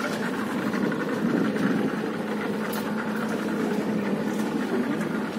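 Motorboat engine running steadily, an even drone with no change in speed.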